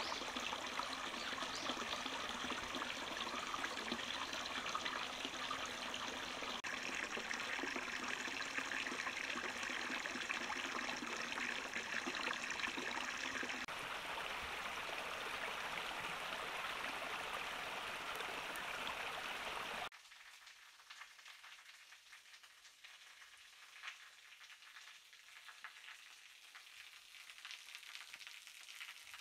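Flowing water in several short takes: a steady rush that changes character abruptly about a quarter of the way and again about halfway through, then drops suddenly about two-thirds through to a much quieter trickle with scattered small drips.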